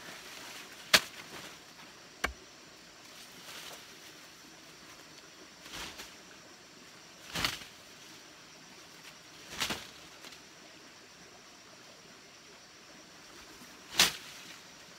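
Leafy branches swatted at a wasp nest in a tree stump: a sharp smack about a second in, the loudest sound, and a second smack soon after, then four swishes spread through the rest, the last near the end.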